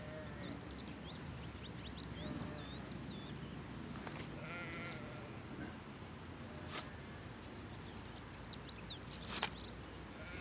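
Sheep bleating against outdoor background sound, with high short chirping calls scattered throughout and three sharp clicks, the loudest near the end.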